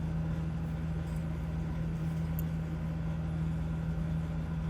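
Steady low mechanical hum, like a motor or appliance running, with two faint light clicks.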